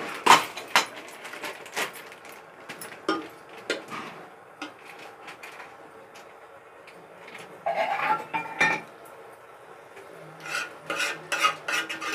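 Steel ladle clinking and scraping against a metal cooking pot while fish pieces in masala are gently turned, in irregular clusters of sharp clicks with quieter stretches between.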